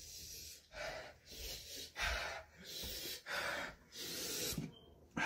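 A man gasping and breathing hard through his mouth, about eight quick hissing breaths in and out: panting from the burn of an extremely spicy gummy bear.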